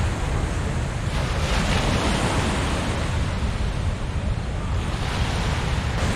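Swollen, fast-flowing floodwater on the Susquehanna River, waves washing and breaking against a gravel shore in a steady rush that swells about a second in and again near the end. Wind rumbles on the microphone underneath.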